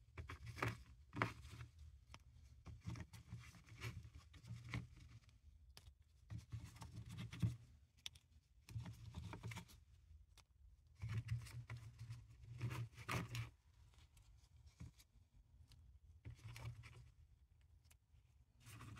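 Paradichlorobenzene mothball tablets shifting in a latex-gloved palm, clicking against each other in short bouts of crisp rustling as the hand turns them over.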